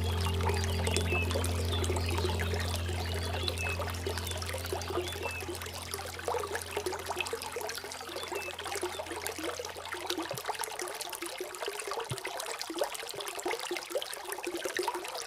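Running water trickling and splashing steadily. Low sustained music tones under it fade away by about two-thirds of the way through, leaving the water on its own.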